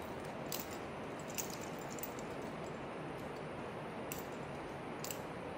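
Climbing gear clinking: about five short, sharp metallic clicks at irregular intervals over a steady background hiss.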